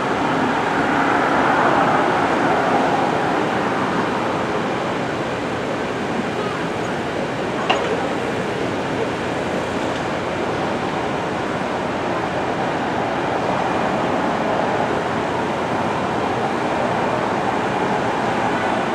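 Steady murmur of a crowd of people talking, with a single sharp click about eight seconds in.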